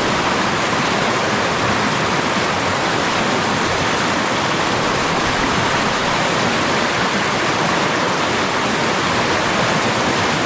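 Rushing river water: a steady, unbroken hiss of flowing water.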